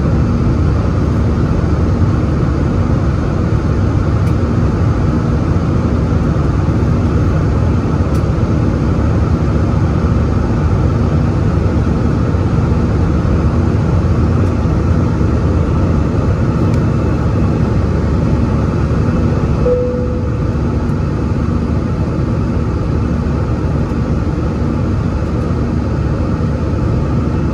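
Steady cabin noise of an Airbus A320 in its climb, heard from a window seat over the wing: the drone of its CFM56 engines and the rush of air, with a faint hum under it. A short tone sounds about twenty seconds in, and the noise eases slightly after it.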